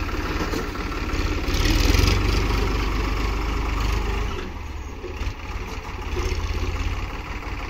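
Farmtrac 35 tractor's diesel engine running as it pulls a seed drill through a turn, swelling louder for a couple of seconds, easing off a little over halfway through, then picking up again near the end.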